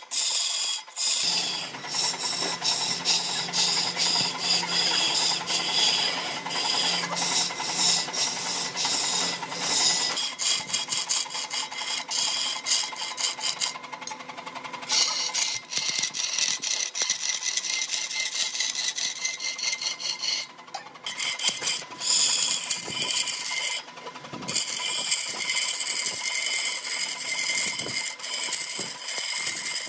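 Rapid scraping and rasping strokes on wood, like hand filing or sanding, kept up with a few short pauses.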